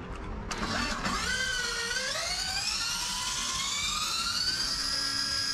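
Brushless electric motor and drivetrain of a 1/5-scale RC racing truck whining under throttle. The whine wavers at first, then climbs steadily in pitch for about three seconds as the truck speeds up, and levels off at a high, steady whine.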